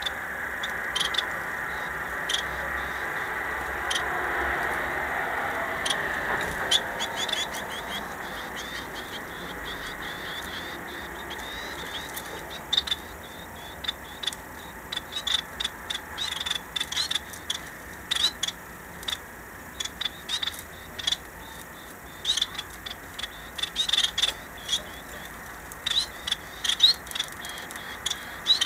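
Caged society finches (Bengalese finches) giving short, high chirping calls, scattered at first and coming thick and fast in the second half. A rushing background noise fades away over the first ten seconds or so.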